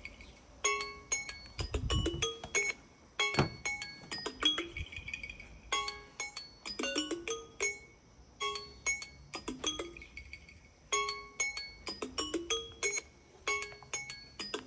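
A tablet's ringtone or alarm tone played through its small speaker: a short melody of bell-like mallet notes that repeats every couple of seconds. There are a couple of dull knocks in the first few seconds.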